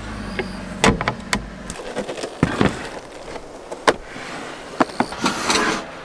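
Plywood cabinet door swung shut with a knock, then a scatter of sharp knocks and clicks as things are handled and set down, with a short rustle near the end.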